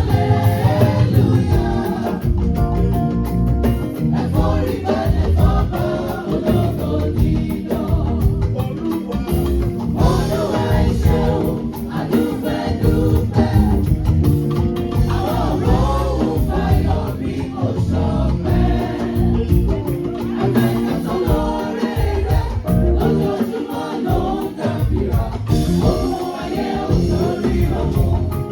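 A choir singing a gospel song over instrumental accompaniment with strong bass.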